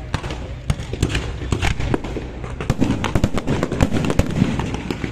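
Aerial fireworks going off in quick succession: a dense run of sharp cracks and bangs, several a second, over a low rumble.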